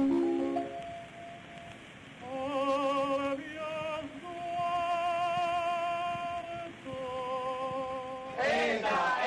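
A voice singing a run of long held notes with a wide vibrato, in an operatic style. Near the end several voices break in together, louder, chanting.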